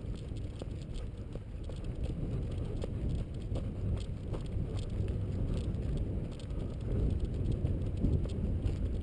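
Footsteps jogging on a dirt and gravel track, short irregular crunches over a steady low rumble of wind and movement on the microphone.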